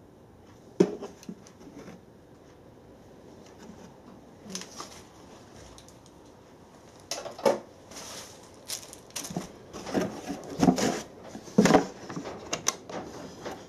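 Handling noises: a single click about a second in, then from about halfway a scattered run of knocks and clicks as a wooden instrument case is moved about in a cardboard box and its small metal catch is worked.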